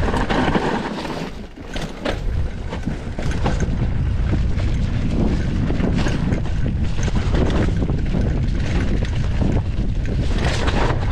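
Mountain bike descending a rough dirt trail at speed: wind buffeting the microphone over tyre noise, with many short rattles and knocks from the bike over the ground. The noise drops briefly about one and a half seconds in.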